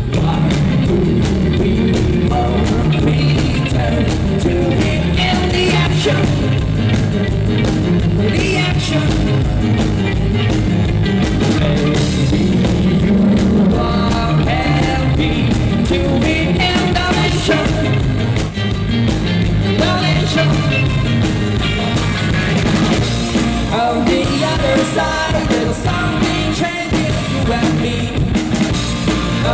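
Rock band playing live, a singer's voice carried over the band.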